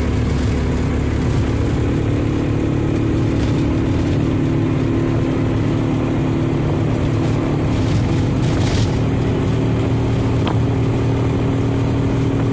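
Duromax 440cc single-cylinder engine pulling the truck down the road, running steadily under load, heard from inside the cab; its note rises slightly about ten seconds in.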